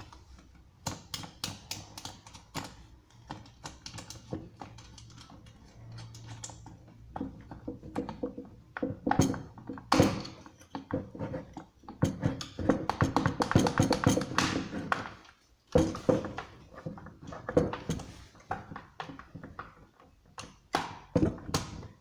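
Irregular taps, clicks and knocks of hard objects being handled, thickest in a busy run around the middle, over faint background music.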